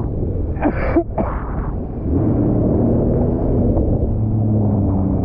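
Sea-Doo GTR 230 jet ski's supercharged three-cylinder Rotax engine running under way. Its steady drone steps up louder about two seconds in as the ski speeds up. A brief shout comes about a second in.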